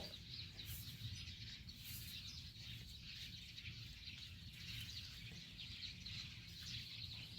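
Faint chirping of small birds over a low background rumble of outdoor ambience.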